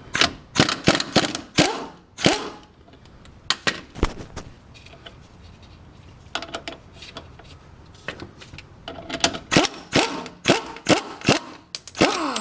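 Sharp metallic clanks and knocks of hand tools on the shock absorber's mounting hardware. They come in a quick cluster at the start and another in the last few seconds, with a few scattered knocks between.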